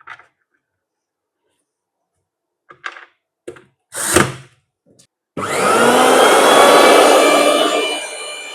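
A few handling knocks and a thump, then a mixer grinder's motor switched on about five seconds in: it spins up with a rising whine and runs loud and fast, dropping somewhat in level shortly before the end.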